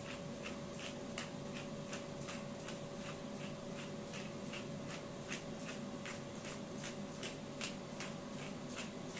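Hand pepper grinder being twisted, grinding peppercorns in a steady run of short clicks, about three a second.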